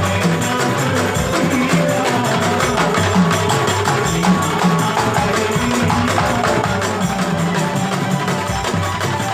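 Music with a steady percussion beat and a bass line.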